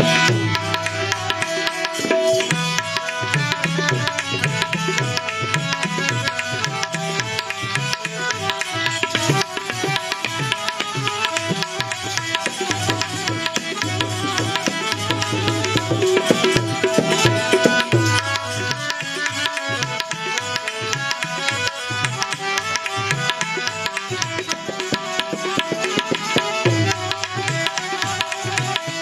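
Instrumental break in a Gujarati devotional song: tabla playing a steady rhythm over held instrumental notes, without singing.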